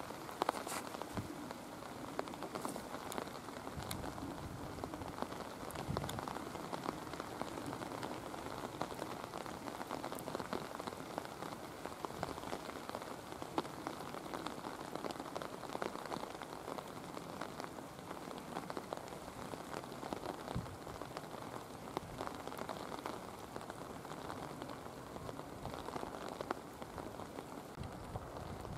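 Steady rain falling on surfaces close to the microphone, a dense, even hiss with many sharp ticks of single drops.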